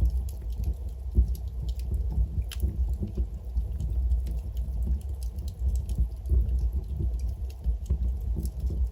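Wood fire burning in a fireplace: a low steady rumble of flames with many small, irregular crackles and pops from the burning logs.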